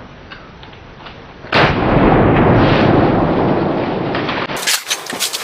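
A single shotgun blast at a turkey about a second and a half in, its boom rolling on for about three seconds before dropping away, followed by rustling and handling noises.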